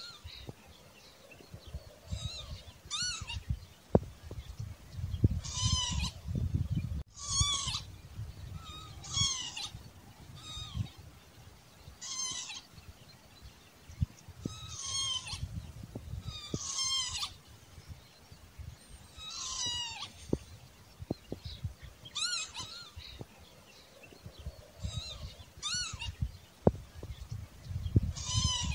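Northern lapwing calling over and over, a wavering, slurred call repeated roughly every two seconds, with a low rumble and a few faint clicks underneath.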